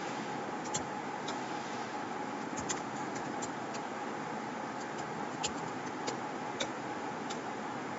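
Computer keyboard keystrokes: a dozen or so short, sharp clicks at irregular spacing while a command is typed, over a steady background hiss.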